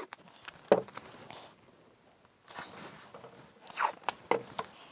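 Blue painter's tape being pulled off the roll in several short, zipper-like rips.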